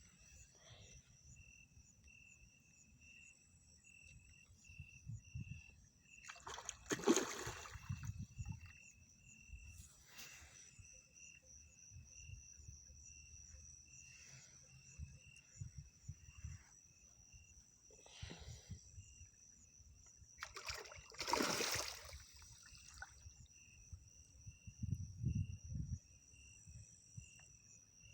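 Crickets chirping steadily in two pulsing high tones, over a low rumble. Twice there is a louder splash of water.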